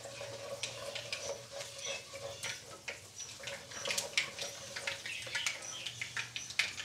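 Whole fenugreek seeds sizzling and crackling in hot mustard oil in a nonstick wok as they fry toward light brown, with a plastic spatula stirring through the oil. A faint steady hum sits underneath.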